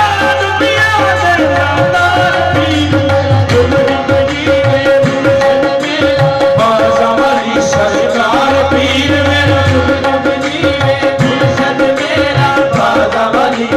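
Live qawwali: a lead vocalist and male chorus sing ornamented melodic lines over a steady harmonium drone, with hand-drum percussion.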